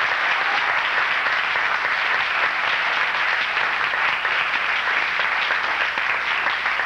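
Audience applauding, a dense steady clapping that holds at one level throughout.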